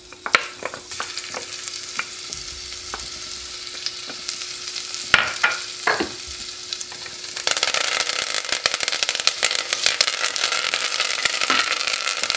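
Garlic and thyme sizzling in hot melted butter in an Instant Pot's inner pot on sauté, stirred with a wooden spoon that knocks against the pot a few times. The sizzling grows clearly louder about two-thirds of the way through.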